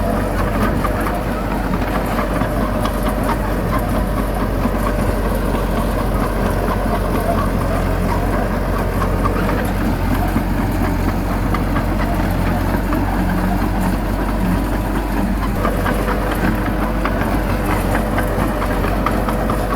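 Heavy diesel engine of earthmoving machinery running steadily, with a fine clatter over it.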